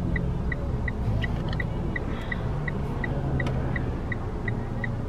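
Inside a car: a steady low engine and road rumble, and a short, high electronic beep from the dashboard repeating evenly about three times a second.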